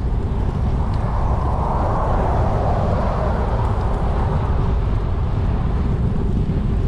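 Steady wind noise on the microphone of a moving bicycle, a low rumble with a hiss over it.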